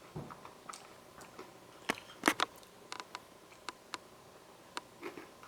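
A child biting into and chewing a crunchy snack: scattered crisp crunches, the loudest about two seconds in.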